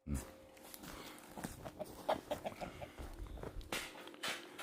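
Rooster clucking softly, a quick run of short clucks.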